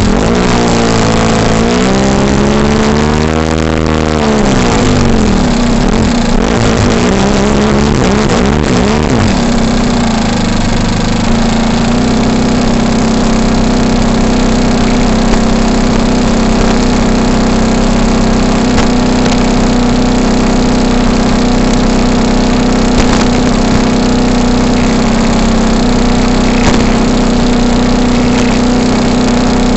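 Four-stroke glow engine of a NexSTAR 46 RC model airplane on a ground run, revved up and down a few times. About nine seconds in it settles into a steady idle.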